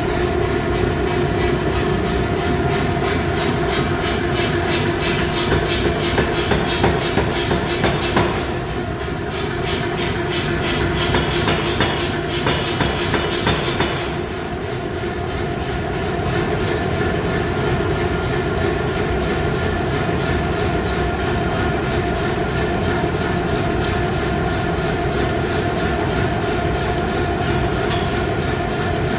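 Blacksmith's forging machinery running: a steady droning hum under a fast, even mechanical clatter, typical of a power hammer working a hot billet. The pounding grows louder twice in the middle, around 6–8 s and again from about 10 to 14 s.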